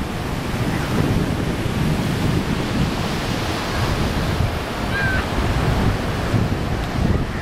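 Ocean surf breaking and washing on a beach, a steady rushing wash that swells and eases, with wind buffeting the microphone.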